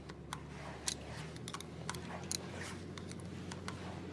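Faint, irregular small metallic clicks and ticks as screws are started by hand into a hydraulic solenoid valve block on an aircraft engine.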